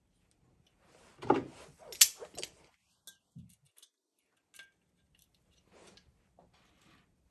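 Small metal parts clinking and knocking as they are handled and set down: a quick cluster of strikes, the loudest about two seconds in, then scattered lighter ticks.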